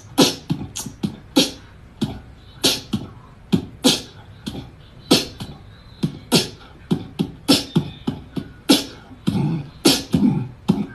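An irregular run of sharp percussive hits, two or three a second, each a low thud joined to a crisp high snap, with short quiet gaps between.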